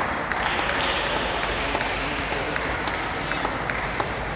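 Table tennis balls being struck, scattered sharp clicks off paddles and tables, over a steady hiss of crowd noise that swells slightly after the start.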